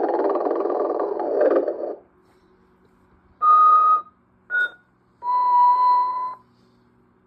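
A 1992 Telco animated Santa figure's recorded sleeping sounds: a snore of about two seconds, then whistling breaths out, a short whistle, a brief higher peep and a longer steady whistle near the end, with a faint hum underneath.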